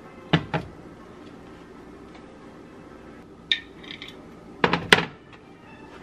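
Butter knife and glass jars knocking and clinking against the plate and countertop while a peanut butter and jelly sandwich is made: two sharp knocks near the start, a lighter clink partway through, and a quick cluster of knocks about five seconds in, the loudest.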